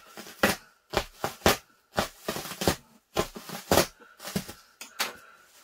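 Clear plastic wrapping crinkling and crackling in quick, irregular bursts as it is handled and pulled apart.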